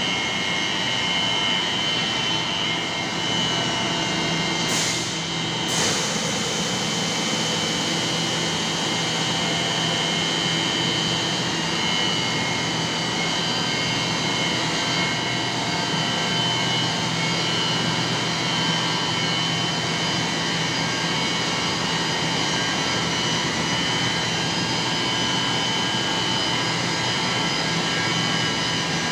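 Chilled-water and condenser-water pumps of an HVAC plant running steadily: a continuous motor-and-pump roar with a steady high whine over a low hum.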